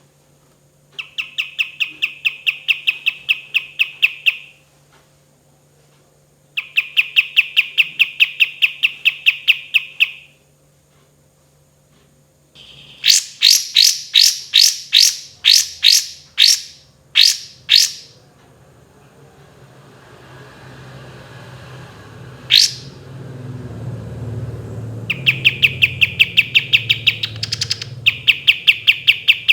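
Kapas tembak bulbul singing: fast, rattling trills lasting a few seconds each, then a run of loud, sharp separate notes about two a second, a single sharp note, and more trills near the end. A low rumble rises behind the song in the second half.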